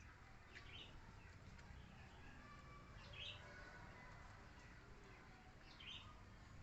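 Faint, short, high chirps, three in all, roughly two and a half seconds apart, over a low steady rumble.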